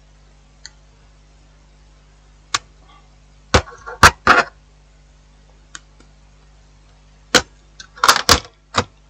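Sharp clicks and taps from the small plastic parts of a disassembled phone being handled and set down on a workbench, several single taps and then a quick cluster near the end, over a faint steady hum.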